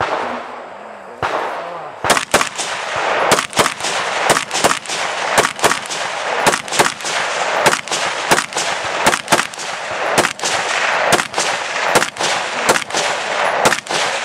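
Gunfire from a shouldered long gun: a single shot about a second in, then a fast string of shots at roughly two a second, each trailed by an echo.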